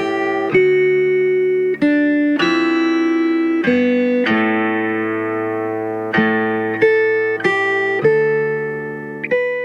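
Background music: a plucked string instrument playing a slow line of single notes and chords, each note starting sharply and ringing out as it fades.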